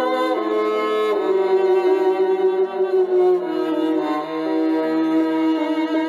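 Background music of bowed strings, violin and cello, playing slow held melody notes.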